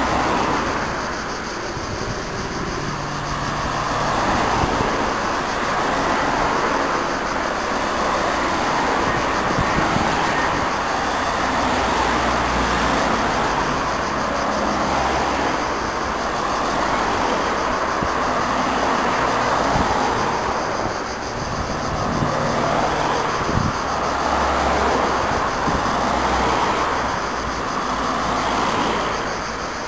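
A convoy of cycling-race team cars, Skoda estates carrying spare bicycles on roof racks, driving past one after another. Engine and tyre noise swells as each car goes by and fades, then builds again with the next.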